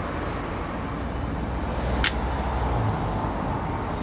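A single sharp click about two seconds in as the plastic combination switch and clock spring are handled on the steering column, over a steady low rumble and hiss of background noise.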